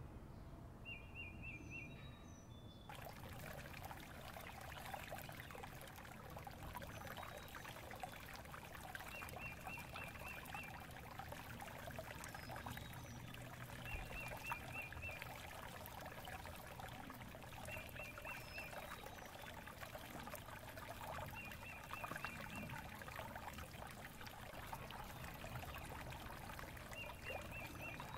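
Water trickling steadily, starting about three seconds in, while a bird repeats a short rapid trill every few seconds and faint higher chirps come and go.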